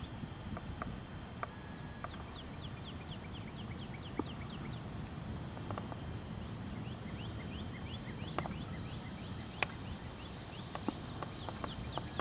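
Outdoor ambience: a steady low rumble of wind on the microphone, scattered sharp clicks, and several runs of short, quick, high chirps.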